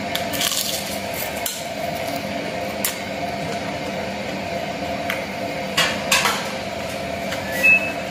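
Mussel shells and fingers clicking and knocking against a plate now and then during eating by hand, over a steady background hum.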